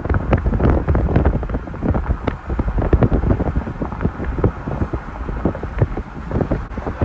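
Gusty wind buffeting the microphone, loud and uneven.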